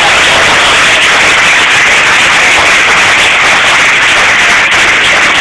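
Audience applauding loudly and steadily in a standing ovation, a dense wash of many hands clapping at once.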